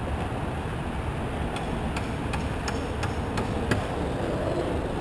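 Steady low outdoor rumble, with a run of about seven light, evenly spaced ticks, roughly three a second, starting about a second and a half in.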